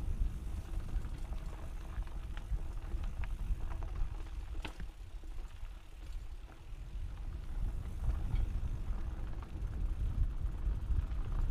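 Wind rumbling on a GoPro microphone as a mountain bike rides down a dirt trail, with scattered clicks and rattles from the bike over rough ground. The wind eases about five seconds in and builds again toward the end.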